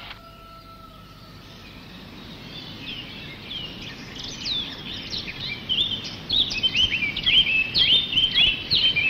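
Songbirds chirping outdoors: many short, quick chirps that start faintly and grow denser and louder from about three seconds in, over a low background hiss.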